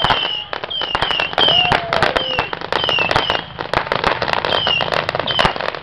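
Fireworks going off in a rapid run of crackling pops and bangs, with short high falling whistles repeating throughout and a lower arcing whistle about two seconds in.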